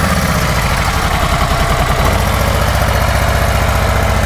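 2024 Harley-Davidson Road Glide's Milwaukee-Eight 117 V-twin idling just after being started. The idle settles for about the first two seconds, then runs steady.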